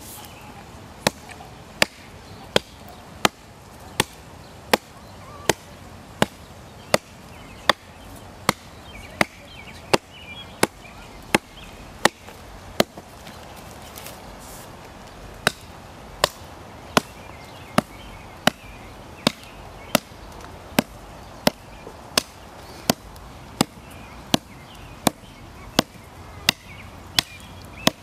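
Gossman 9-inch Tusker chopper knife chopping into a small tree trunk near its base: sharp, regular blows about every three-quarters of a second, with one pause of a couple of seconds midway.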